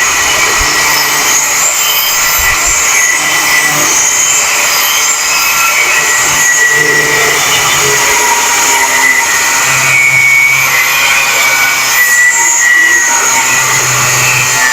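Electric grinder working steel: a steady high motor whine over a continuous grinding hiss, held without a break.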